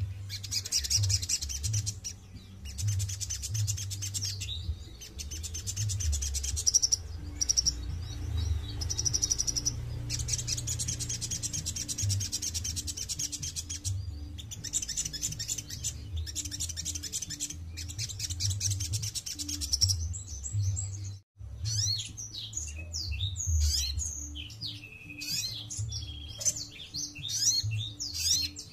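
Olive-backed sunbird singing: long, very fast, high trills broken by short pauses, then, after a brief break about twenty seconds in, a run of varied sharp chirps and whistles.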